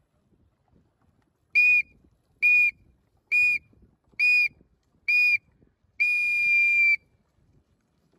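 High-pitched race starting signal counting down the start of a dinghy race: five short blasts just under a second apart, then one long blast of about a second marking the start.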